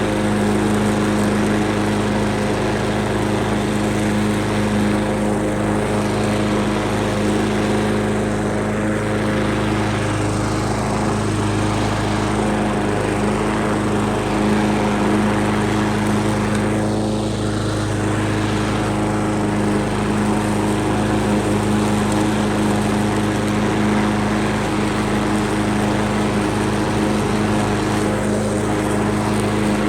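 Craftsman self-propelled walk-behind lawn mower's small engine running steadily at an even speed.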